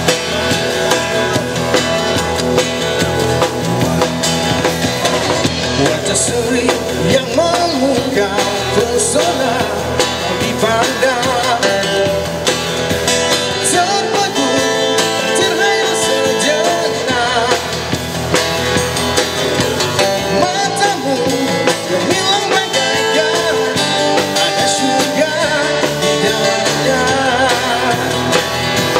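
Live band music: an acoustic-electric guitar with bass guitar and drum kit, and a male singer singing through a microphone and PA.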